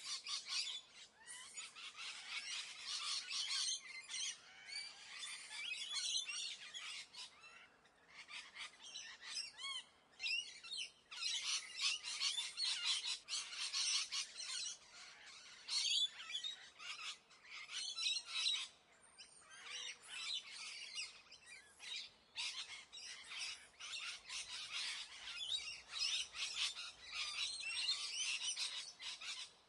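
Many birds chirping and twittering in rapid, overlapping calls, with short lulls around eight, ten and twenty seconds in.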